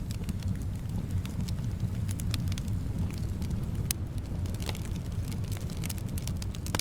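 Wood fire burning in a fireplace, crackling with scattered sharp pops over a steady low rumble of soft wind.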